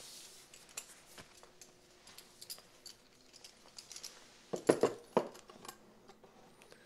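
Small objects being handled: scattered light clicks and clinks, with a few louder knocks about two thirds of the way through.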